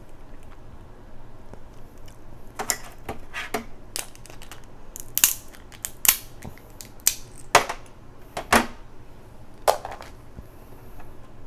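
Crab shell cracking and snapping as king crab and Dungeness crab are broken open to eat, about ten sharp cracks and crunches at irregular intervals, the loudest in the second half.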